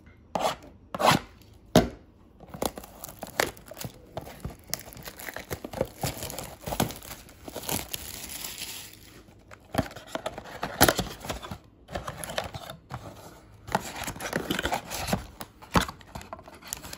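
Cellophane shrink wrap crinkling and tearing as it is peeled off a cardboard trading-card box, in irregular sharp crackles and snaps. After that the cardboard lid is pulled open and the packs inside are handled.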